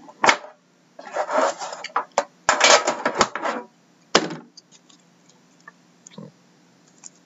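Handling of a metal trading-card tin and the shrink-wrapped card box inside: a sharp click, then a few seconds of loud rustling and scraping in uneven bursts, a knock, and after that only light taps as the box is turned over in the hands.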